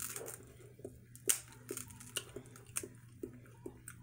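Crab-leg shell cracking and snapping as it is pulled apart by hand, with close-up chewing: a string of sharp cracks and clicks, the loudest about a second and a quarter in.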